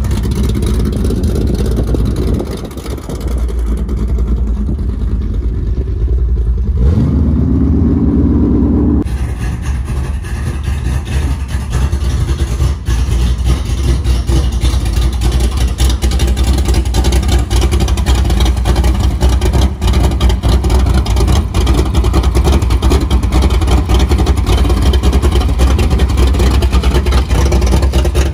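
Car engine running with a heavy low rumble; about seven seconds in it revs, its pitch climbing for about two seconds, and the rumble then carries on.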